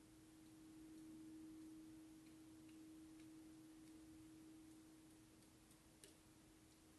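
Near silence: room tone with a faint steady hum, and a few faint ticks.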